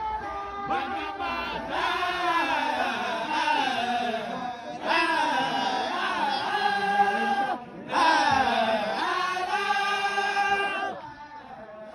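A group of voices chanting a Sufi zikr in unison, in long held phrases that slide up and down in pitch, with brief breaks between phrases. The chant drops away near the end.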